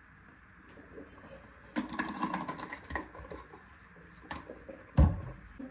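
A person gargling mouthwash: a fast bubbling rattle in the throat for about a second and a half. Near the end, a click and then a loud, low thump.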